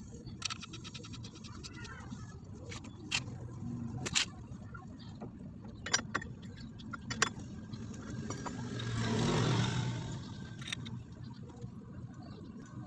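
Scattered sharp metal clinks of hand tools and parts on a scooter's CVT drive pulley as it is being fitted. About nine seconds in, a passing vehicle's noise swells and fades and is the loudest sound.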